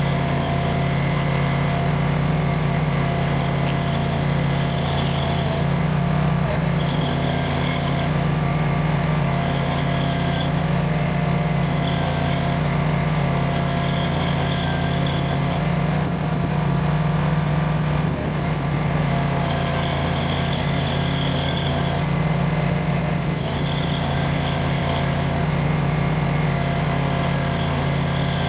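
Barreto 30SG stump grinder's engine running steadily under load while its hydraulically driven cutter wheel grinds into a stump, sweeping side to side. A higher whine comes and goes every second or two over the steady engine hum.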